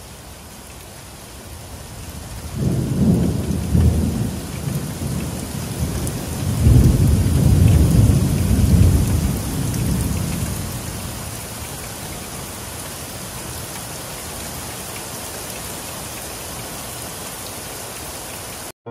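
Heavy rain falling steadily, with two rolls of thunder: a first rumble about three seconds in and a louder, longer one from about seven seconds in that slowly fades away. The rain cuts off abruptly at the very end.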